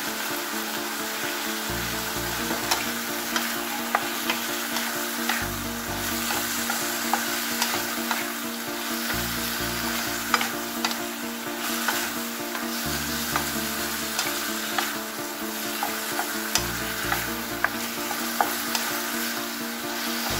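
Sliced potatoes, bell peppers, onion and green peas sizzling in oil in a metal wok while a wooden spatula stirs them, with frequent sharp knocks and scrapes of the spatula against the pan.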